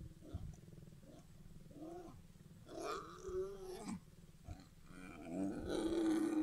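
Lion growling in a series of short and drawn-out calls that bend up and down in pitch, the loudest about three seconds in and again in the last second and a half.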